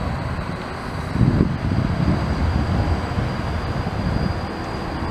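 Green Siemens Combino low-floor tram's low rumble of wheels on rails as it runs through, growing louder about a second in.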